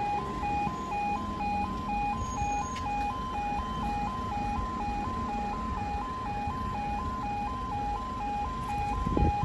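Level crossing audible warning alarm sounding: a two-tone yodel that switches back and forth between two pitches about three times a second, over low road-traffic rumble. A brief thump comes near the end.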